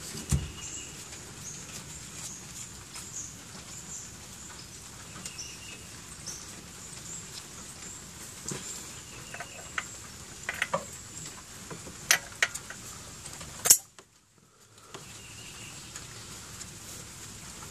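Small metal parts being handled and fitted onto the crankshaft nose of a Ford Focus 2.0L SOHC engine: scattered light clicks, taps and scrapes, with a sharper clink near the end before the sound cuts out for about a second.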